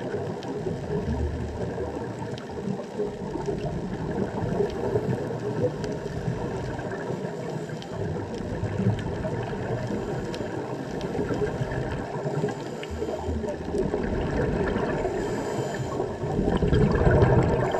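Underwater ambience from a camera filming on a coral reef: a muffled, steady rush of water movement with scattered faint clicks, growing louder near the end.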